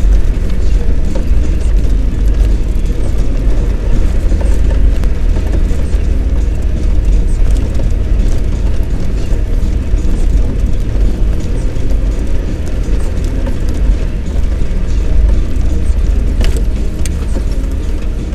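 Car cabin noise while driving over a rough gravel and dirt lane: a heavy low rumble with constant rattling and knocking, and a couple of sharp clicks near the end.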